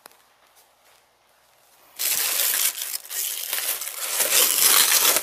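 Thin plastic film covering a glass mixing bowl crinkling loudly as it is handled and pulled off. It starts suddenly about two seconds in, after a near-silent start with a few faint clicks.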